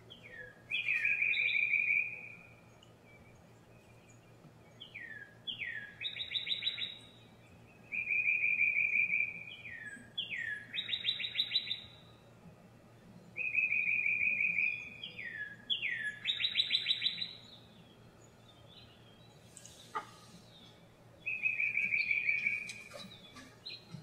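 A songbird singing the same short song over and over, about seven times a few seconds apart. Each song is a few quick down-slurred notes, then either a fast trill or a long held whistle. A faint sharp knock sounds once, late on.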